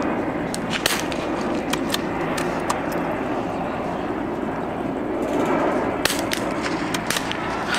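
.22LR precision rifle firing during a timed stage: sharp cracks about a second in and again about six seconds in, with fainter clicks between, over a steady background noise.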